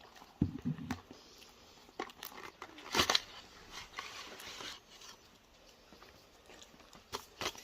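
Smartwatch packaging being opened and handled: scattered rustling, crinkling and clicks, with the loudest crackle about three seconds in.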